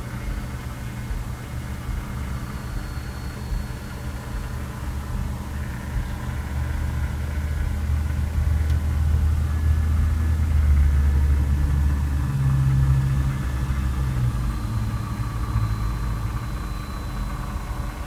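Steady low mechanical rumble with a faint hum, growing louder for several seconds in the middle.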